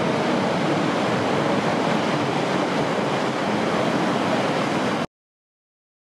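Steady rushing noise of a giant ocean wave breaking into whitewater, cutting off abruptly about five seconds in.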